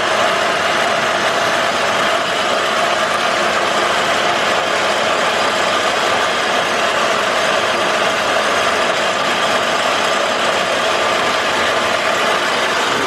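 Metal lathe running steadily with an even machine hum while a small steel pin is turned down to size.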